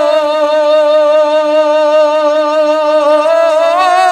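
A man singing a Bengali Islamic gojol into a hand-held microphone, holding one long note with a slight waver, the pitch lifting a little near the end.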